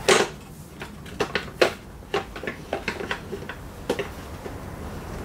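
Irregular light clicks and knocks of a hand-made welded metal battery box being pushed and test-fitted into a motorcycle frame, with one louder knock at the start.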